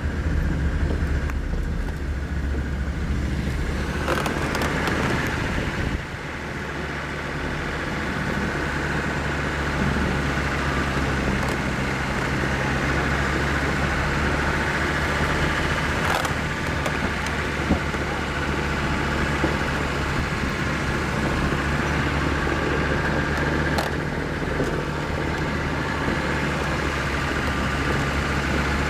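Mercedes-Benz G-Class engine running steadily as the SUV creeps over a wooden narrow-gauge railway bridge, with a few sharp knocks along the way. The engine note drops about six seconds in and then builds again.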